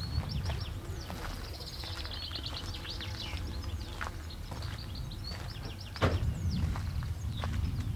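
Small songbirds singing, with high chirps and rapid trills, over a low rumble of wind on the microphone. A few sharp steps or knocks cut in, the loudest about six seconds in.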